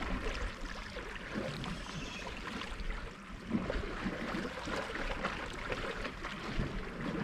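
Sea water sloshing and lapping around shoreline rocks, a steady irregular wash.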